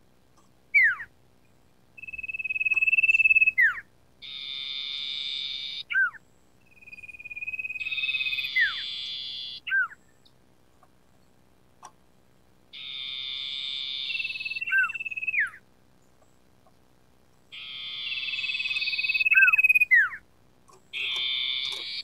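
Common iora (cipoh, sirtu) singing a repeated phrase about four times. Each phrase is a long, steady whistle that grows louder, then a harsh buzzing rasp of about a second and a half, then one or two sharp falling whistled notes.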